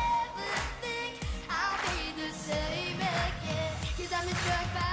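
A boy singing a pop song to acoustic guitar, with a steady beat under the melody.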